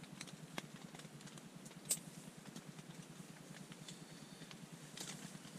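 Rain pattering steadily on a tent, with faint rustling and small clicks of hands rummaging through a backpack; one sharp click about two seconds in is the loudest sound.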